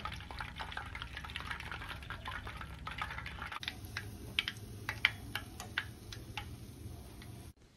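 Hot oil deep-frying battered chicken pieces: a steady sizzle with frequent irregular crackles and pops, the bubbling settling down as the chicken is done. The sound cuts off abruptly just before the end.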